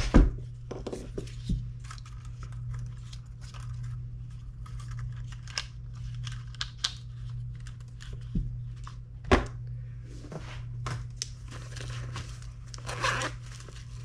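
Handling noise of a DJI Mavic Mini drone and its zip carrying case: plastic clicks, scrapes and rustling, with a sharp knock right at the start and another about nine seconds in. A steady low hum runs underneath.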